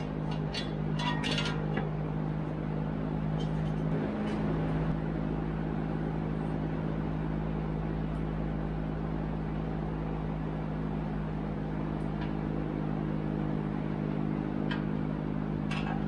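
A steady low mechanical hum of several held tones over a low rumble, with a few faint clicks and taps in the first seconds, around four seconds in, and again near the end.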